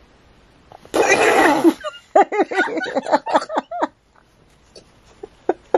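A woman bursting out laughing: a loud breathy shriek about a second in, then a quick run of short laughs, followed by a few faint clicks.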